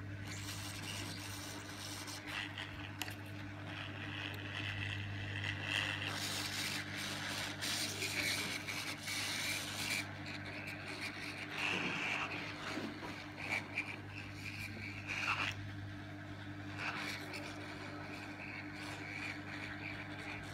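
Hot air rework gun blowing at low air volume: a steady hum under a rushing hiss of air that swells and fades as the nozzle is moved over the solder paste.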